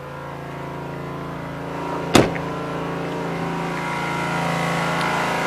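An engine idling steadily, getting a little louder toward the end. About two seconds in there is one sharp slam, a truck door shutting.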